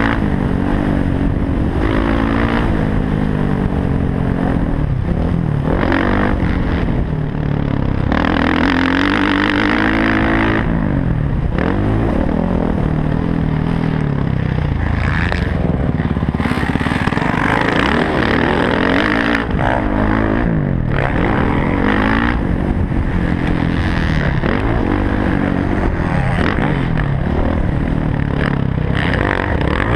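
Dirt bike engine under hard riding on a motocross track, its pitch rising and dropping again many times as the throttle opens and the gears change, heard from a helmet-mounted camera.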